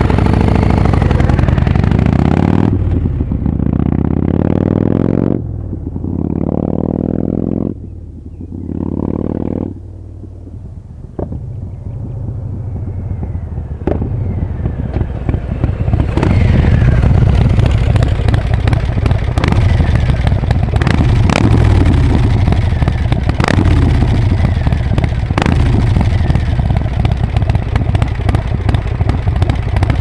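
Harley-Davidson Breakout's V-twin engine revving and pulling away through the gears, dropping in loudness with each shift as it goes. It is faint for a few seconds, then grows loud again about halfway through as the motorcycle comes back and runs close by.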